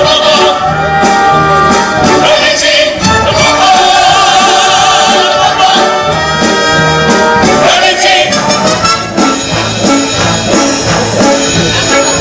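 Live orchestra with brass and drums playing a musical-theatre number, with the ensemble singing along.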